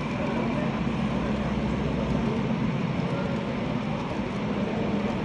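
Model freight train of covered hopper cars rolling steadily along the layout track, mixed with the background chatter of voices.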